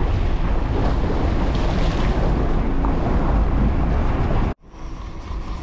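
Wind buffeting the microphone over the steady rumble and water rush of a sportfishing boat underway on a choppy sea. The sound cuts out suddenly about four and a half seconds in, then comes back quieter.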